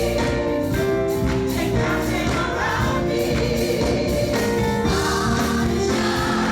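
Gospel choir singing with a live band, steady beat throughout.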